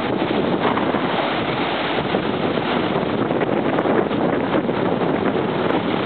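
Ocean surf breaking along a sandy beach: a steady, unbroken rush of waves.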